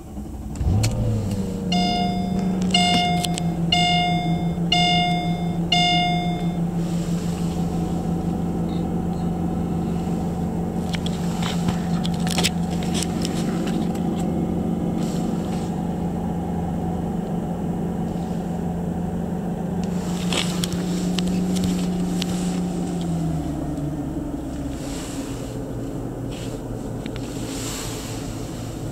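2002 Mercedes SL 500's 5.0-litre V8 on a cold start: it catches in the first second and settles into a steady, raised idle, which drops to a lower idle about 23 seconds in. A dashboard chime beeps five times, about once a second, starting about two seconds in.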